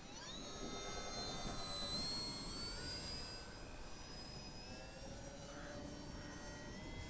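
Electric motor and propeller of a small RC Cessna 182 whining in flight, the pitch rising sharply at the start as the throttle opens, then holding with slow drifts in pitch. Wind rumbles on the microphone underneath.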